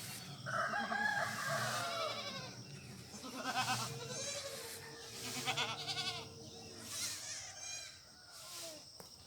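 Farmyard animal calls: a long rooster crow about half a second in, followed by several short, quavering goat bleats.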